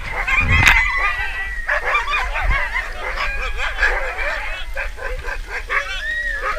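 A team of harnessed sled dogs barking and yelping together in a continuous, overlapping chorus, with one sharp knock a little under a second in.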